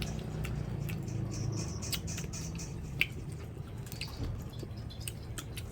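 Scattered small crisp clicks and crunches of people eating crispy deep-fried mice, with a sharper knock about three seconds in, over a steady low hum.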